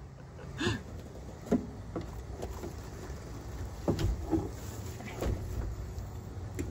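Footsteps knocking on wooden dock stairs, a few irregular thuds as a heavy load in a plastic garbage bag is carried down, over a low steady hum.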